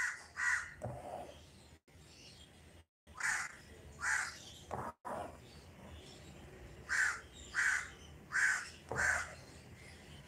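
A bird calling: eight short, loud calls, mostly in pairs about half a second apart.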